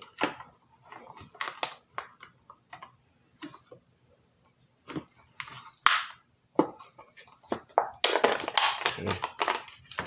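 Scattered small sharp clicks and light rustling from hands handling small plastic and metal parts, with one crisp click about six seconds in and a denser stretch of crackling clicks near the end.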